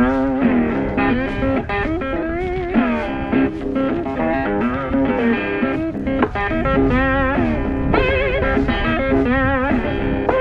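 Background music: a bluesy electric guitar playing notes with string bends and vibrato.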